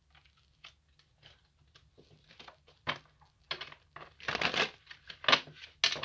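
Deck of tarot cards being shuffled by hand: a string of short rustles, sparse at first, then busier and louder over the last few seconds.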